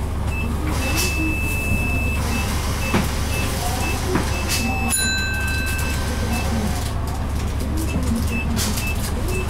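Mitsubishi Fuso 6M70 turbo-diesel engine of a stationary Aerostar bus idling with a steady low rumble. Over it a high electronic beep sounds, held for about a second at first and then repeating in short pips, about three a second.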